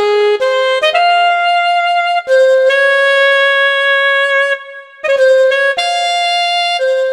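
Saxophone voice of a Korg Pa5X arranger keyboard playing a slow melody, one note at a time, with long held notes and a brief pause about two-thirds of the way through.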